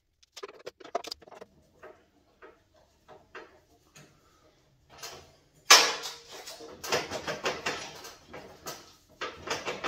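Light clicks and knocks from the metal parts of a Shopsmith Model 510 being handled. About six seconds in comes a sudden loud metal scrape and clatter, followed by uneven rattling knocks.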